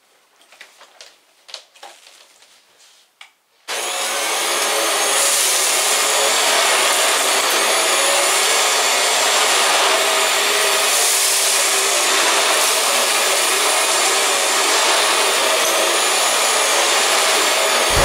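Vax Mach Air Revive upright bagless vacuum cleaner running steadily on a low-pile rug, with its motor and spinning brush bar. It starts abruptly about four seconds in, after a few faint clicks and knocks.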